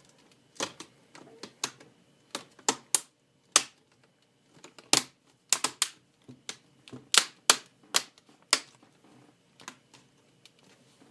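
Plastic retaining clips of an HP Pavilion DV6 laptop's display bezel snapping into place one after another as the bezel is pressed onto the screen lid: about twenty sharp clicks at uneven intervals.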